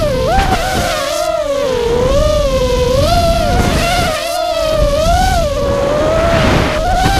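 Onboard sound of a racing quadcopter's brushless motors (Cobra 2206 2100kv) spinning 5-inch Gemfan props: a loud buzzing whine whose pitch rises and falls every second or so as the throttle changes. Wind rush on the on-board microphone underneath.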